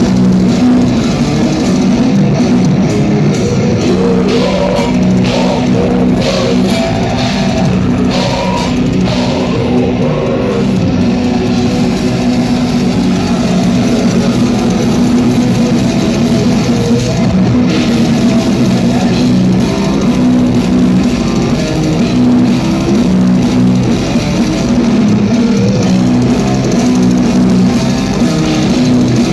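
Blackened death metal band playing live: loud, dense distorted electric guitars over drums.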